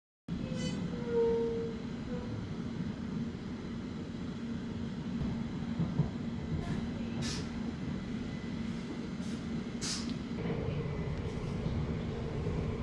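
Steady rumble and low hum of a moving train heard from inside the carriage. There is a short tone about a second in and a few sharp clicks later on.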